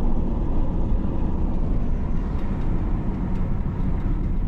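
Steady rumble of a truck driving along a road: engine and tyre noise with no sudden events.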